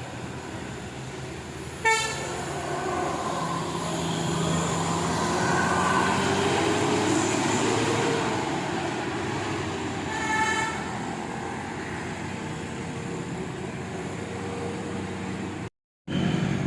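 Basuri horns on vehicles sounding in short blasts, one about two seconds in and another about ten seconds in. Between them runs a steady vehicle noise that swells and fades. The sound cuts out briefly near the end.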